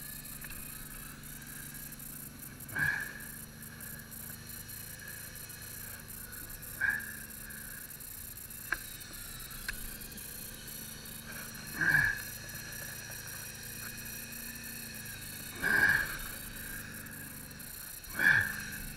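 A side-by-side being winched up a steep slope on a line anchored around a tree, with a steady whir underneath. Five short creaks, each falling in pitch, come every few seconds from the loaded tree anchor, which is straining and starting to lift at the roots.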